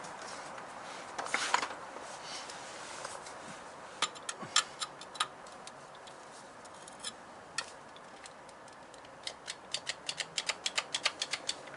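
Sharp plastic clicks of an electric cut-off tool's trigger switch being pressed over and over while the tool gets no power and does not spin up: a few clicks about four seconds in, then a quick run of about three a second near the end.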